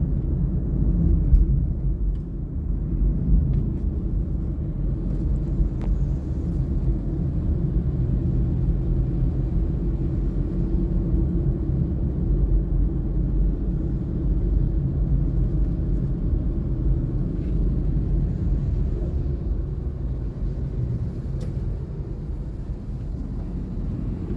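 Steady low rumble of a vehicle driving along a road, with engine and tyre noise and no distinct events.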